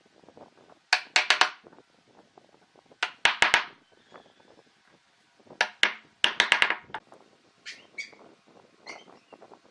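Sharp knocks or taps in quick groups of three or four, four such groups, then a few lighter single knocks near the end.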